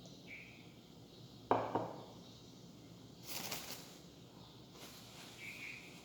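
Two short high chirps of wild birds, one near the start and one near the end. A sharp clatter about one and a half seconds in is the loudest sound, and a brief hissy rustle follows around three seconds in.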